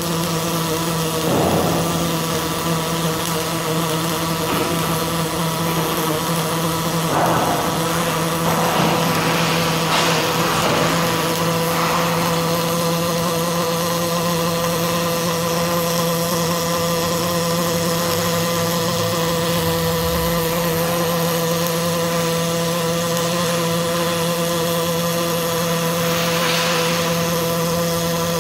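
Robotic arc welding on steel components: the welding arc runs continuously as a steady hiss over a constant hum of several steady tones, swelling briefly a few times.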